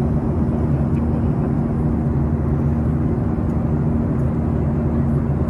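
Steady cabin drone of a jet airliner in cruise flight: engine and airflow noise with a constant low hum.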